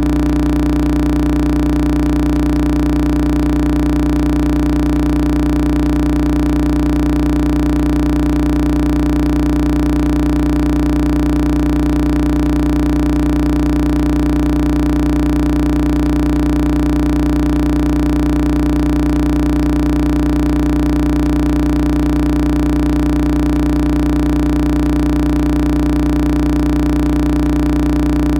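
A loud, perfectly steady drone of several held tones together, with a low hum beneath. It does not change in pitch or loudness at all, and it takes over abruptly just before, where the strummed guitar music stops.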